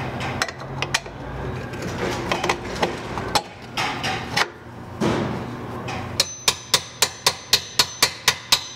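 Hammer tapping the long steel through-bolt home through a BMW E39 rear swing arm and wheel carrier, a quick even run of metallic strikes about four a second starting about six seconds in. Before that, scattered clinks and knocks of hands and tools at the bolts.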